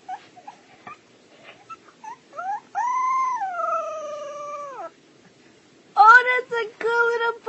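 Husky puppy giving one long howl of about two and a half seconds that rises and then slowly falls, after a few small whimpers. Near the end, a run of loud, short, high-pitched voice sounds begins.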